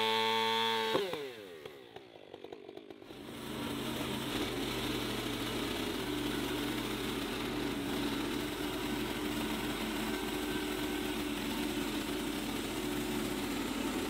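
Portable bandsaw mill's small gas engine running hard, then shut off about a second in, its pitch falling as it spins down. After a brief lull the engine is running again steadily at a lower speed.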